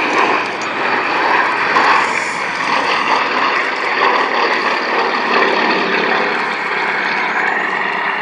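Aerobatic display aircraft with supercharged nine-cylinder radial engines flying past, the engine and propeller noise running steadily loud with small swells.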